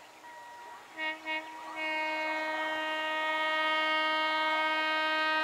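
Indian Railways electric locomotive air horn: two short blasts about a second in, then one long, loud held blast.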